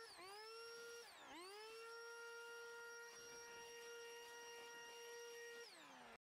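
Electric leaf blower running faintly with a steady high whine. The pitch dips and recovers twice in the first second or so, and falls away near the end as the blower winds down.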